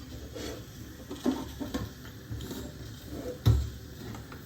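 Pressure cooker and its inner vessel being closed up: light metal clinks, then a heavier clunk about three and a half seconds in.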